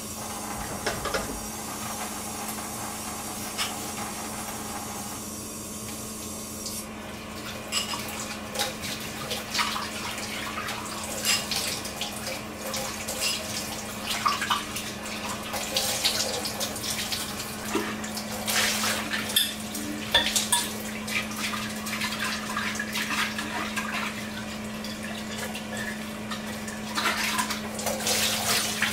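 Kitchen tap running into a sink while dishes and cutlery clink against each other, as when washing up by hand.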